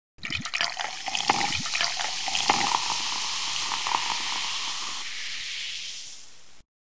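Carbonated drink fizzing, with many small pops in the first few seconds. The hiss then fades away and cuts off suddenly near the end.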